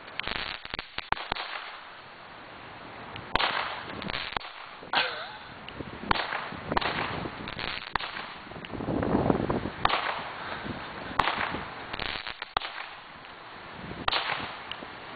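Consumer firework going off: repeated sharp cracks and pops at irregular intervals, with a longer hissing burst about nine seconds in.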